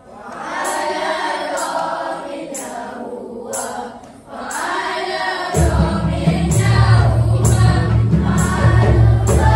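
Children's choir singing together. About five and a half seconds in, large hand drums come in under the voices with a heavy low beat.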